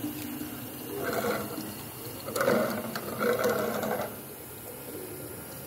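Pneumatic liquid filling machine dispensing liquid from its nozzle into a plastic bottle, the pour swelling louder in a few spells between about one and four seconds in.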